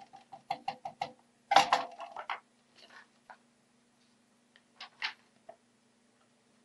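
Handling a circuit board and tools on a wooden desk. A quick run of small sharp clicks comes first, then a louder clatter about a second and a half in as the assembled headphone-amplifier board is set down, then a few lighter taps and two clicks near the end. A faint steady hum runs underneath.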